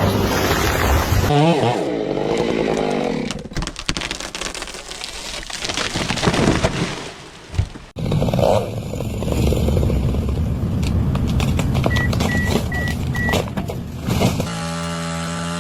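Chainsaw engine running across several cut-together clips, with sharp cracks and crackling in the middle stretch.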